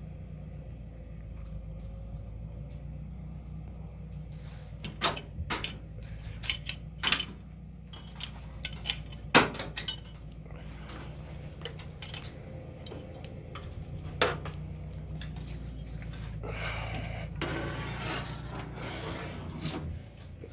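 Scattered light metallic clinks and knocks, a dozen or so sharp separate hits, over a steady low hum.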